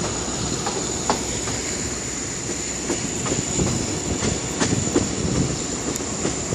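Train running on the track, wheels knocking irregularly over rail joints under a steady rumble, with a thin high-pitched tone held throughout.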